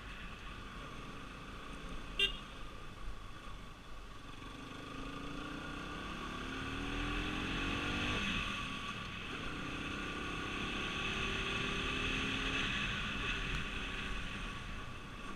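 Vehicle travelling on an expressway: steady road and engine noise, with the engine note rising over a few seconds, twice. There is a sharp click about two seconds in.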